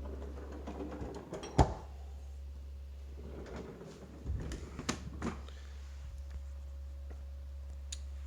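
Plastic parts of a refrigerator's freezer being handled: a sharp clack about a second and a half in, then several lighter knocks and clatter near the middle, over a steady low hum.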